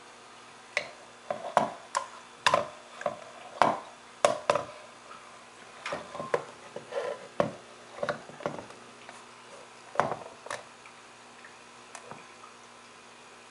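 Handling noise: irregular knocks and clunks of hard objects being moved and set down, most of them between about one and five seconds in, then thinning out and stopping after about twelve seconds.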